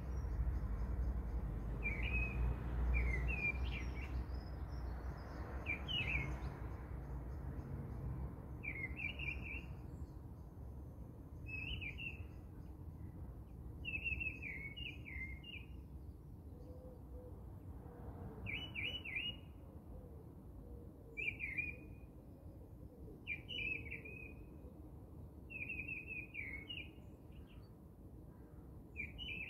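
Birdsong: a small bird repeats a short chirping phrase about every two seconds, over low background noise that fades after the first few seconds.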